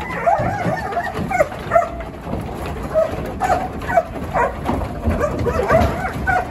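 Working sheepdog barking in short, repeated barks, about one or two a second, as it pushes a tightly packed mob of sheep in a shearing-shed pen.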